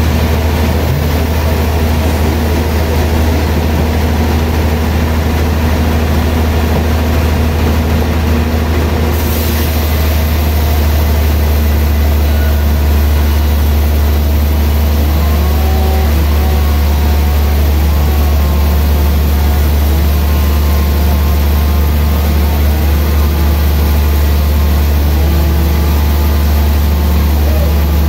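Large vertical band sawmill running with a steady, loud, low hum, its band blade cutting lengthwise through a big hardwood log as it is fed along the carriage.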